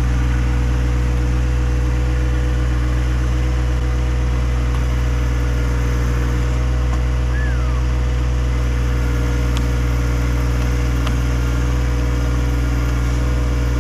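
John Deere 1025R sub-compact tractor's three-cylinder diesel engine running at a steady speed.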